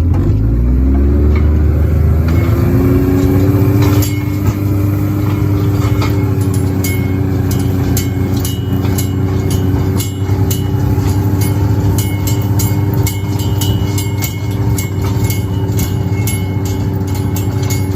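Tractor engine picking up revs and then running steadily under way, with a steady whine and frequent metallic clanks and rattles, as a round bale of hay is unrolled.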